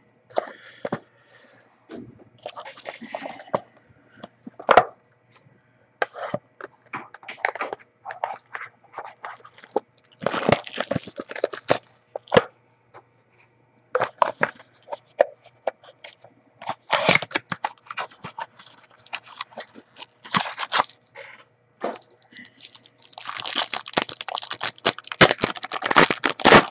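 Crinkling plastic wrapping and handled cardboard, in irregular crackly bursts with sharp clicks, as a box of trading cards is unwrapped and its mini boxes are opened. It is most continuous near the end. A faint steady hum runs underneath.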